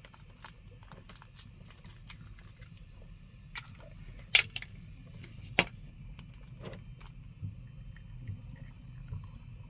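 A few sharp clinks and taps against a metal mixing bowl, the loudest two about four and a half and five and a half seconds in, over a low steady rumble.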